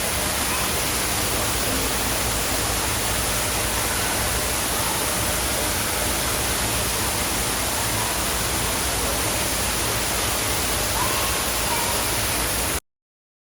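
Steady loud rushing noise that cuts off abruptly near the end.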